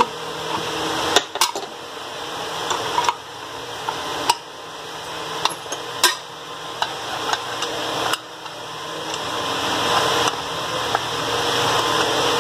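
A spanner clicking and scraping against an aluminium pressure-cooker lid while the nut holding its brass vent tube is worked loose, a few sharp metal clicks over a steady background hiss that swells and drops several times.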